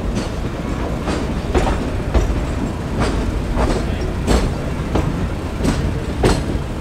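Meter-gauge passenger train running, heard from its coach: a steady low rumble of the wheels on the track, with a sharp clack as they cross each rail joint, roughly every half second to a second.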